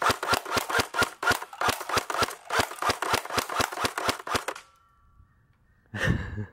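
Spartan Imports T21 airsoft gun firing single shots in quick succession, about five sharp cracks a second, stopping about four and a half seconds in. A short thump follows near the end.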